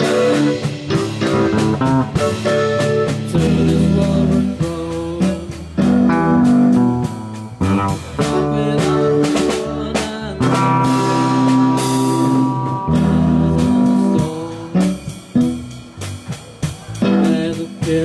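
Live band music led by guitar, with chords and picked notes changing every second or two.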